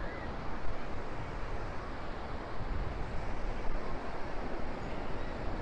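Steady rush of surf breaking along a wide sandy beach, mixed with wind buffeting the microphone as a low, uneven rumble.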